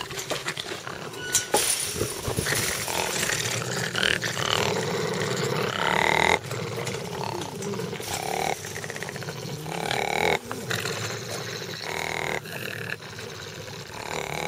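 A group of bat-eared foxes growling together in a rough, continuous chorus, with short higher-pitched cries breaking through every second or two: a defensive threat display aimed at a dog at the fence.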